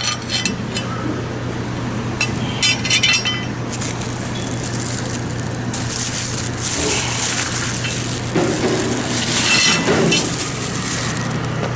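Handling noise: light clinks with a brief ringing about three seconds in, then a stretch of scraping hiss, over a steady low hum.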